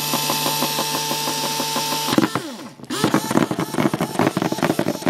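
LEGO Power Functions M motor running with a steady electric whine. About two seconds in it winds down, then starts up again with a rougher, rattling sound as its polarity switch is moved.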